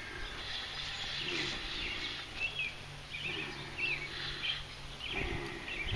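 Small birds chirping again and again in short calls, over a steady low background hum.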